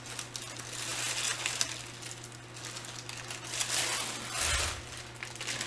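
Candy packaging being handled and crinkling in uneven bursts, with a dull thud about four and a half seconds in, over a steady low electrical hum.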